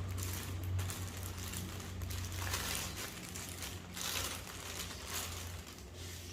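Packaging being handled, rustling and scraping in irregular bursts, over a low steady hum.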